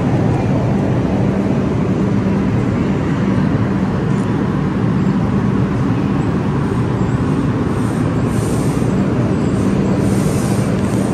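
New York City Subway 2 train of R142 cars slowly pulling into an underground station: a steady loud rumble with a constant low hum.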